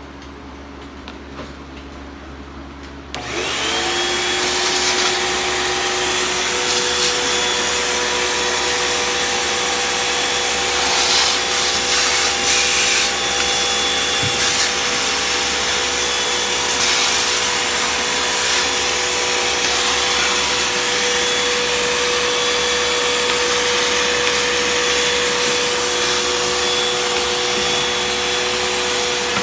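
Vacuum cleaner switched on about three seconds in: the motor spins up with a brief rising whine, then runs steadily with a loud rushing noise and a high whine.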